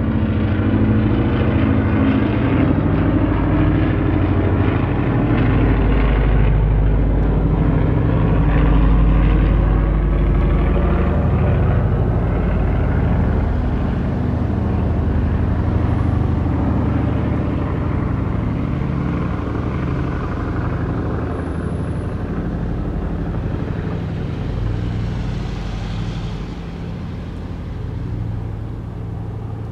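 Junkers Ju 52 trimotor's three radial engines droning as it flies overhead, loudest about a third of the way in, then fading steadily as it flies away.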